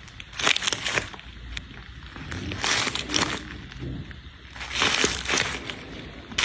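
Something soft being squeezed for its squishy sound, squishing and crinkling again and again, about every two seconds.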